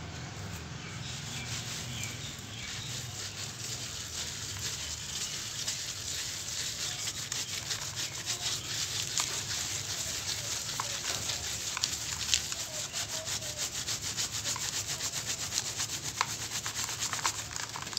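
A dry cement lump rubbed by hand against wire mesh screen, crumbling: a dense, rapid gritty grating with scattered sharp ticks of grit.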